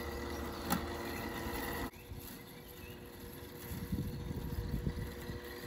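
Husqvarna Automower 435X AWD battery-electric robot lawn mower running across grass, with a faint steady whine from its electric motors. The level drops suddenly about two seconds in. Irregular low rumbles come about four to five seconds in.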